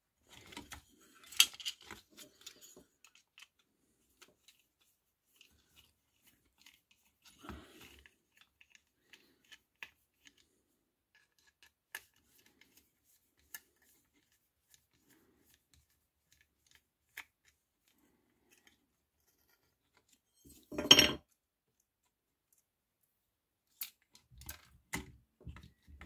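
Scattered small clicks, taps and plastic handling noises from a screwdriver and hands working the screws and plastic housing of a diesel heater's controller board. A short, louder clatter comes about three quarters of the way through, and a quick run of clicks near the end.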